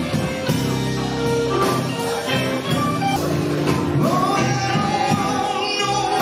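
A live band playing, with singing. Held notes and chords run throughout, and about four seconds in a note slides up and is held.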